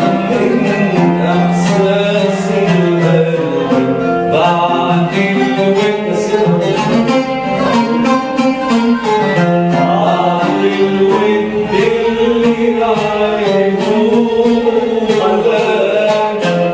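Arabic music played live: a man sings over an oud and a qanun, with plucked notes running throughout.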